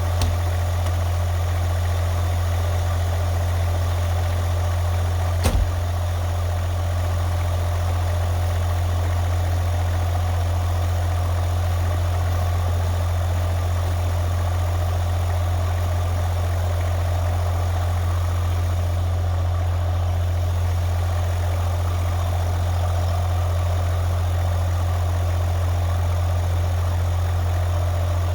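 Small diesel engine of a 2-ton mini excavator idling steadily, cold, soon after starting on glow plugs after six weeks unused in below-freezing weather. A single brief click or knock about five seconds in.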